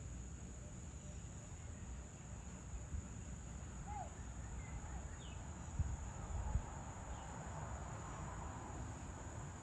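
Evening ambience dominated by a steady, high-pitched insect trill, typical of crickets, with a low rumble underneath. A few short bird chirps come in the middle, and a couple of brief low thumps come just after.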